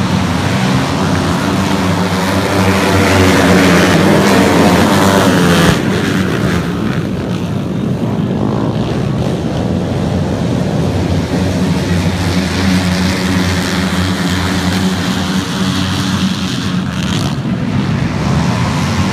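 A pack of dirt-track racing motorcycles running hard around the track, engines rising and falling in pitch as they rev and pass. Loudest in the first six seconds, then somewhat quieter.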